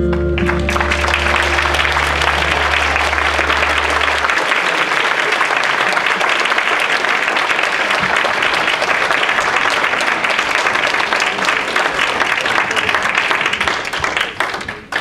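Audience applause, a steady crackle of many hands clapping that fades out near the end. The song's last held notes ring under it for the first few seconds, the low bass note stopping about four seconds in.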